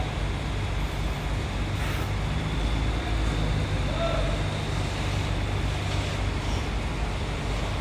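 Coach bus diesel engine running steadily with a low hum as the bus pulls slowly out of its parking bay.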